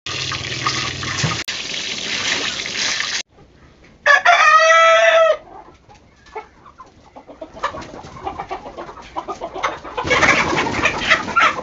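Hot oil sizzling as it is ladled over a hanging chicken in a wok. About four seconds in a rooster crows once, then chickens cluck in a coop, ending in a loud flurry of squawking and flapping near the end as one is grabbed.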